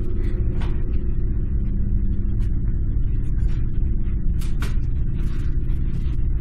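Low, steady rumbling drone from the soundtrack, with a few short sharp ticks and swishes above it.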